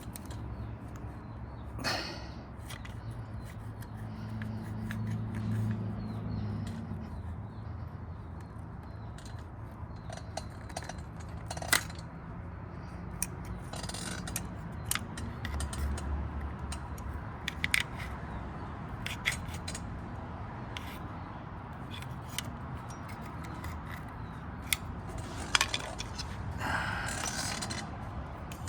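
Hand work on motorcycle carburetors and rubber intake boots: scattered small clicks, taps and scrapes, with a few sharper snaps, as the boots are pushed and pried over the carburetor openings.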